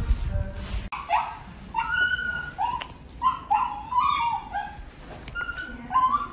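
Small puppy giving a string of short, high-pitched yips and whines, about eight in a row, starting about a second in.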